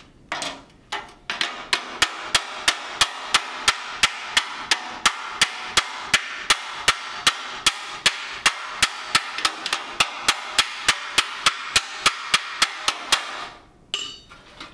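Steel hammer striking a 1935–36 Ford steel dash panel on an anvil, knocking down the high spots of the TIG-welded repair. A steady run of ringing blows, about three to four a second, after a few scattered first hits. The blows stop shortly before the end and are followed by a couple of light metal clinks.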